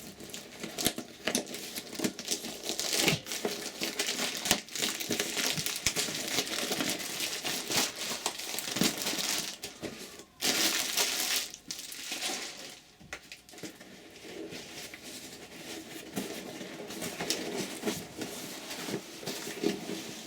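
Packaging being unwrapped by hand: wrapping crinkling and rustling, with scattered light knocks and a louder burst of rustling about ten seconds in.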